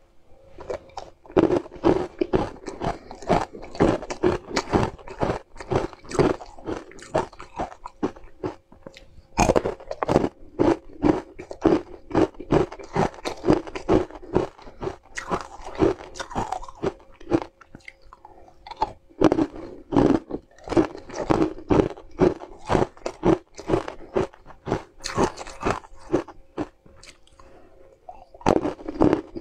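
Close-up crunching and chewing of hard ice slabs dusted with green powder, a rapid run of crisp crunches several a second, with short lulls roughly every nine seconds as a new piece is picked up.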